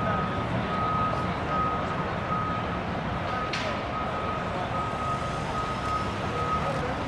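Vehicle backup alarm beeping steadily, about one beep every two-thirds of a second, over constant city traffic rumble, with a brief hiss about three and a half seconds in.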